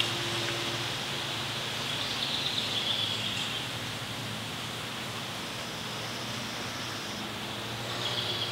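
Lakeside outdoor ambience: a steady, even hiss of the open air, with short bird trills about two seconds in and again near the end.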